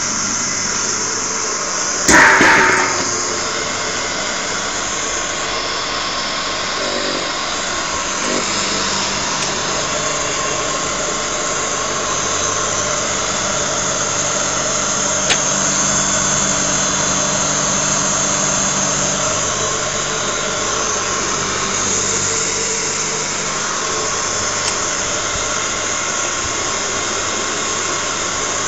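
Electric sesame grinding mill running steadily while it grinds sesame seeds into paste: a continuous motor hum with grinding noise. A brief loud clatter about two seconds in.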